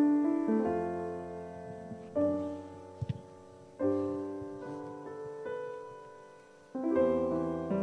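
Slow, soft piano music: a new chord struck about every two seconds and left to ring and fade.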